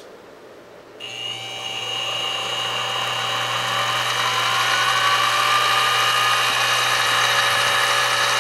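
X2 mini-mill spindle starting up with its gears engaged: about a second in, a steady motor and gear whine begins and grows louder over the next few seconds as the spindle comes up to speed, then runs steadily.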